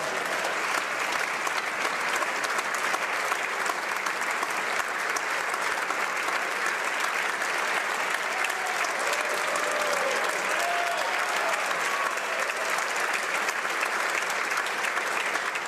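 Members of Parliament applauding steadily in the chamber, with a few faint voices calling out about two-thirds of the way through.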